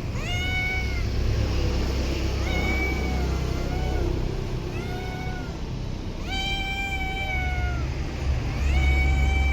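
A cat meowing repeatedly: about five high-pitched meows, each rising at the start and then held, some short and some drawn out. A steady low rumble runs underneath.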